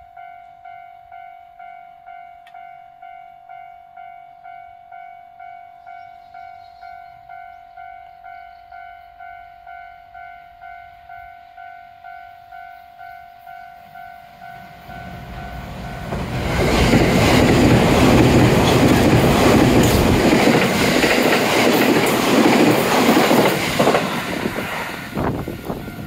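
Japanese level-crossing alarm ringing steadily at about two strikes a second. About 15 seconds in, a JR E657 series limited express electric train comes up and passes close by at speed, a loud rush of wheel and motor noise with wheel clicks over the rail joints that drowns the alarm, which comes back faintly near the end as the train moves away.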